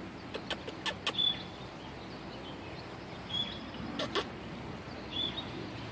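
A few short, high chirps, spaced a second or two apart, over steady low background noise, with a few faint clicks early on and about four seconds in.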